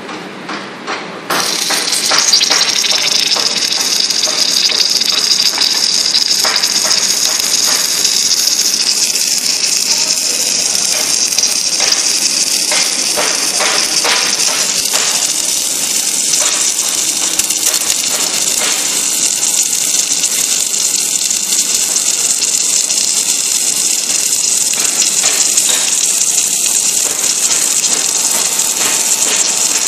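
Submerged arc welding head on a column-and-boom welding manipulator, with its flux recovery suction running: a steady, loud rushing hiss with scattered crackling that starts about a second in.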